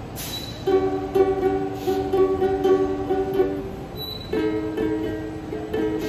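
Ukulele playing a repeated pattern of plucked chords. The chords break off for a moment a little past halfway, then start again.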